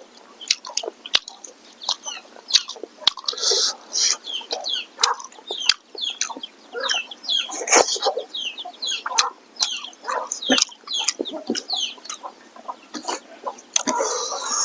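Chickens clucking, with short chirping calls scattered through, over a run of sharp crunching and clicking bites from chewing hard smoked pork skin.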